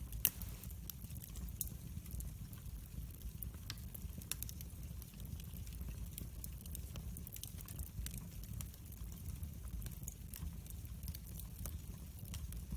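Wood fire burning in a fireplace, crackling with irregular sharp pops and snaps over a steady low rumble of the flames. The loudest pop comes just after the start.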